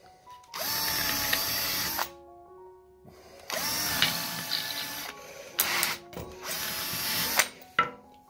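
Power drill boring pilot holes into a wooden board, pre-drilling so the wood won't split when screws go in. The motor spins up and runs in several bursts of a second or so, with two short blips near the end, over background music.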